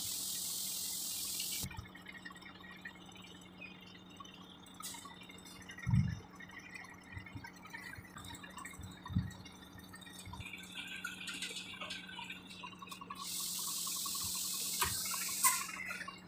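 Compressed air hissing from truck air-brake lines as they are coupled up for the tow, in two bursts of about two seconds each, near the start and again near the end. A low steady engine hum runs underneath, with two dull knocks in the middle.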